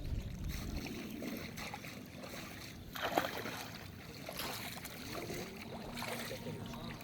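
Pond water sloshing and splashing, with one louder splash about three seconds in.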